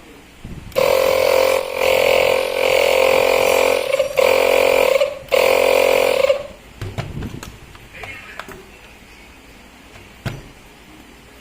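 Makita DMP180 18V cordless inflator's compressor running in four bursts over about five seconds, stopping briefly between them, followed by a few light clicks.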